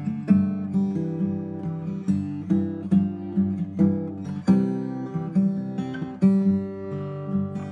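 Guild D25 acoustic dreadnought guitar strung with Martin Retro nickel-alloy light-gauge strings, strummed in a steady rhythm of chords about twice a second, with a few harder accented strums.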